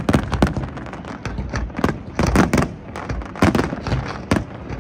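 Fireworks display: aerial shells bursting in a rapid, irregular run of sharp bangs, about three a second.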